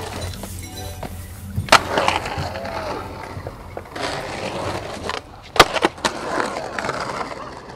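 Skateboard wheels rolling over rough concrete, with a sharp board clack about two seconds in and a cluster of loud board impacts a little past halfway.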